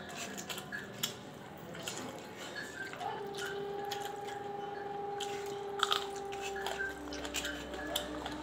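Close, wet eating sounds: chewing, lip-smacking and small irregular clicks as rice, curry and vegetables are eaten by hand from a steel plate. Faint steady held tones run in the background from about three seconds in.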